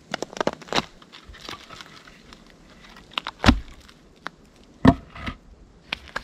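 Wooden boards being handled and laid over a dugout's entrance hatch. A quick run of crackling clicks and crunches comes first, then two heavy wooden thuds about a second and a half apart, with a few lighter knocks in between.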